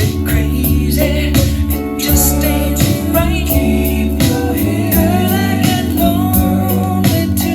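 Music with a steady drum beat and sustained bass notes; a singing voice with a wavering melody comes in about two and a half seconds in.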